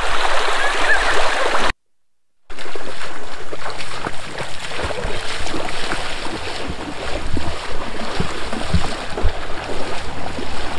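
Shallow creek water running over stones, cut off abruptly after about two seconds. Then steady splashing of a child running through shallow river water, with a few dull thumps.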